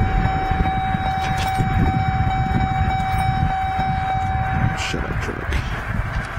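A steady, unwavering electronic buzzer tone sounds for about five seconds and then cuts off. Under it runs a low rumble, like an idling vehicle and wind, with a few faint clicks.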